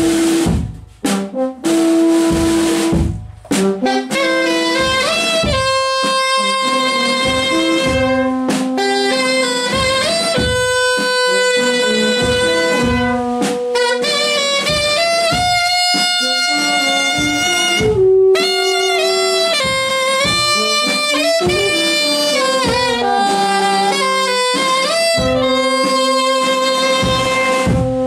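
Brass band playing a marcha regular: alto saxophones and euphonium carry the tune over bass drum and snare drum. The first few seconds come in short stop-start phrases, then the full band plays on steadily.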